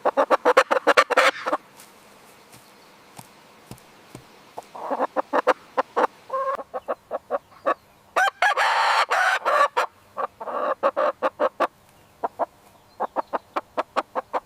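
Chickens clucking in several runs of quick, repeated clucks, with short pauses between the runs.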